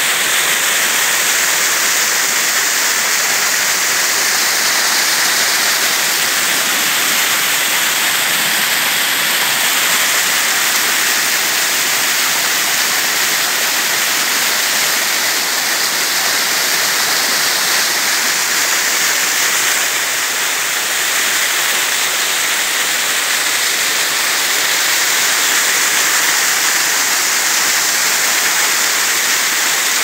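Small waterfall pouring and splashing over rocks, a loud, steady rush of water heard close up.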